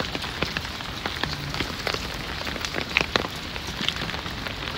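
Steady rain falling, with many scattered sharp taps of individual drops landing close by.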